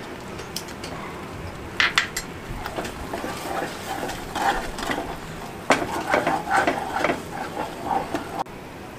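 A spatula stirring and scraping thick tomato masala in a nonstick kadhai, working in spice powders. A few sharp knocks of the spatula against the pan, the first about two seconds in and a stronger one near the middle, come between repeated stirring strokes.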